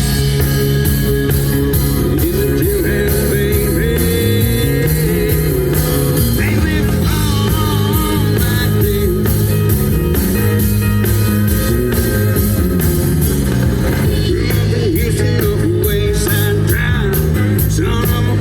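A rock band playing live, with bass, electric guitar and drums, at a steady loud level.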